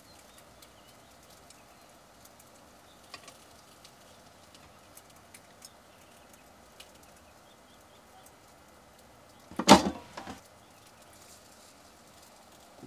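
Stuffed pancakes frying in a pan, a faint steady sizzle with a few small ticks. A loud clatter cuts through about ten seconds in.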